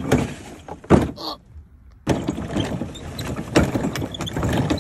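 Hollow plastic ride-on toy car (Little Tikes Cozy Coupe) being pushed over bumpy ground, its plastic body and wheels rattling and clattering with occasional knocks. The sound breaks off briefly about two seconds in, then carries on.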